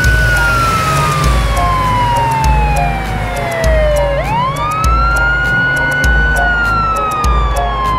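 Police car siren in a slow wail: the pitch slides slowly down for about four seconds, sweeps quickly back up, holds, then starts falling again near the end. A music track with a steady bass beat plays underneath.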